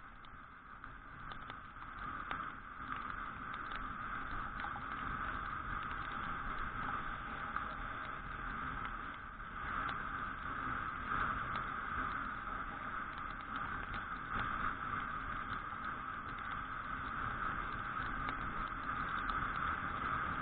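Suzuki Address V125G scooter riding on a wet road in rain, heard through its mounted all-weather camera: a steady, muffled rush that grows louder over the first few seconds, with scattered small ticks of raindrops striking the camera.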